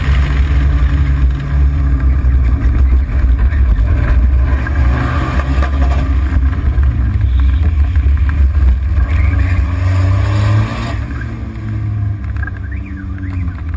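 Car engine and exhaust running hard at speed, with the engine note climbing a couple of times under acceleration over heavy wind and road noise. The sound drops to a quieter level about eleven seconds in.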